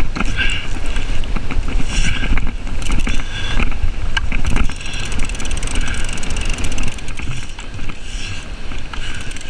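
Wind buffeting an action camera's microphone in an uneven low rumble, with breaking surf behind it and scattered faint clicks.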